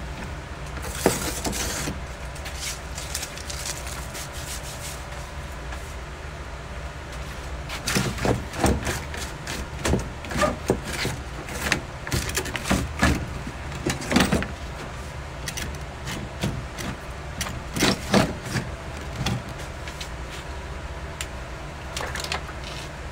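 Irregular scraping and knocking as a hand-held tool is worked along the freshly cut edge of a plastic Jeep Wrangler grille, strokes coming thick for about ten seconds in the middle, over a steady low hum.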